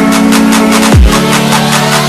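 Background electronic music with a beat: sustained synth tones over fast hi-hat ticks, with a deep falling bass hit about halfway through.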